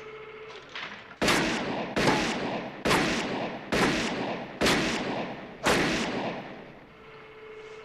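A revolver fired six times in steady succession, a bit under a second apart, each shot with a long echoing tail.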